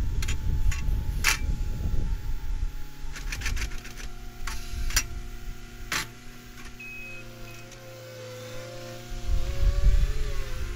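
Caterpillar 259D3 compact track loader's diesel engine running at a distance, its pitch shifting as it works, with a handful of sharp metallic clanks in the first six seconds as it tears at a pine stump. The engine grows louder near the end as the machine drives toward the listener.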